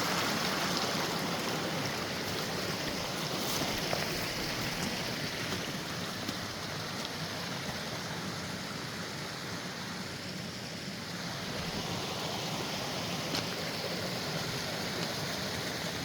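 Mountain creek rushing steadily over rocks close by.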